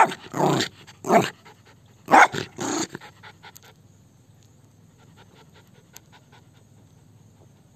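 Indian Spitz barking about five times in quick succession in the first three seconds, then panting softly.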